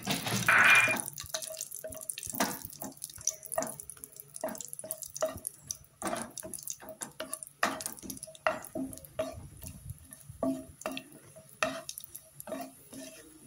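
Cashew nuts frying in oil in a ceramic-coated pan, stirred with a spatula: a steady faint sizzle under irregular scrapes and taps of the spatula against the pan, with a louder clatter about half a second in.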